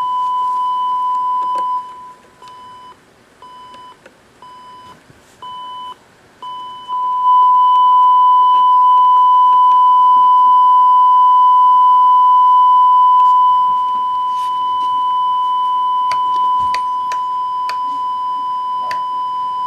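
Electronic beep tone from a Sony Betacam SP broadcast camera, a pure steady tone that breaks into short beeps about twice a second for several seconds, then holds as one long continuous tone.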